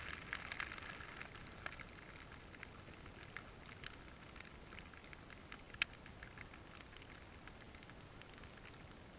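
Faint crackling and ticking of dry grass blades brushing against a camera lying in the grass, thicker at first and thinning out, with one sharper click about six seconds in.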